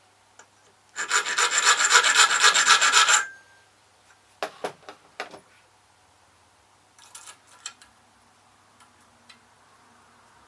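Hand file rasping quickly back and forth on a key blank for about two seconds, cutting the notch for the last pin. A few light clicks and taps follow in two short clusters.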